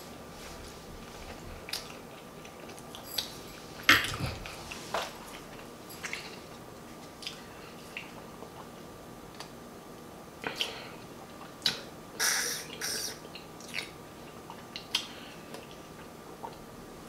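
Mouth sounds of eating and drinking: wet smacks as food is chewed, then sips and swallows of homemade lemonade from a glass mason jar. They come as a scatter of short clicks, with a few louder sounds about four seconds in and around twelve seconds in.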